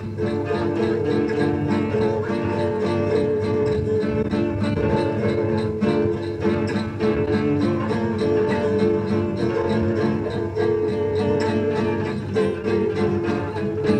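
Music: acoustic guitar played along with other instruments in a dense, steady texture.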